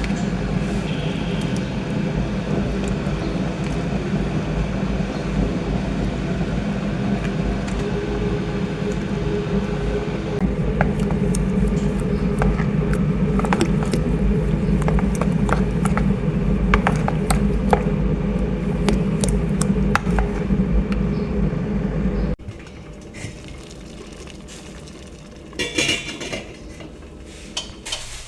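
A steady low machine hum, likely a kitchen appliance, with scattered clicks and clinks of dishes and utensils. The hum cuts off abruptly about two-thirds of the way through, leaving quieter clatter.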